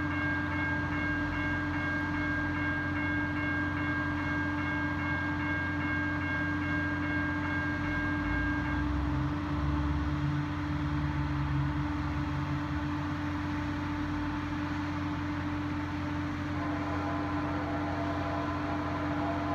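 Approaching diesel freight train's locomotive horn, held in one long blast that stops about nine seconds in, over a low rumble of the train. Near the end the horn sounds again.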